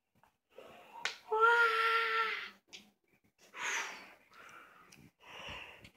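Breath blown hard through a plastic water bottle into dish-soap bubbles, in three gusts. The first and loudest gust opens with a sharp click and carries a steady pitched note.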